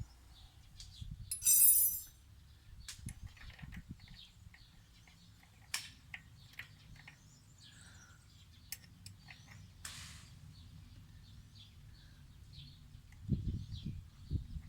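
Metal tools being handled on a bicycle's rear axle: a loud ringing clink of the wrenches about two seconds in, then scattered sharp metal clicks and low handling thumps near the end. Birds chirp in the background.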